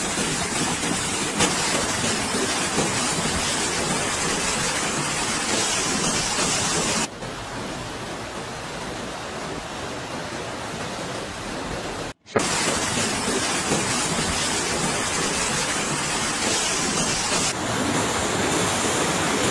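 Steady rushing noise of fast muddy floodwater pouring down streets. It cuts abruptly between clips: quieter about seven seconds in, a brief dropout near twelve seconds, and a change again near the end.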